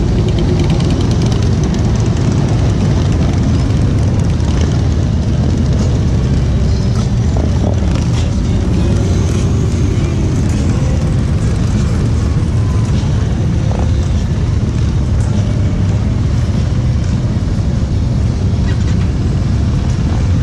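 Steady low rumble of motorcycle engines as a stream of bikes rides past on the road.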